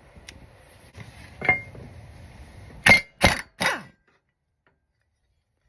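Metal clanking under a mower deck as tools work at a blade: a light tap, a knock that rings, then three loud, ringing clanks in quick succession.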